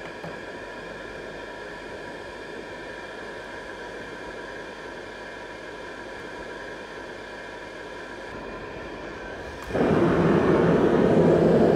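Riello RDB kerosene oil burner's motor running steadily with a whine before ignition. About ten seconds in, the burner fires and a much louder roar of the kerosene flame takes over.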